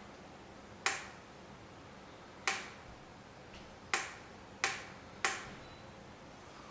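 Five sharp, separate clicks, each with a short ring, spaced about one to one and a half seconds apart: front-panel switches or selector knobs on a vintage oscilloscope being clicked through their positions while setting it up.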